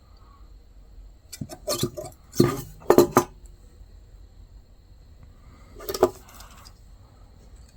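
Metal clinking and clattering as a piece of wire hanger is fitted to a pair of steel hand shears and bent into a latch loop: a quick run of sharp clinks about one and a half to three seconds in, and another clink about six seconds in.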